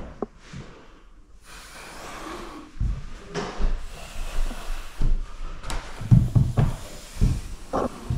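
Scattered knocks and thumps, several close together near the end, with soft rustling between them.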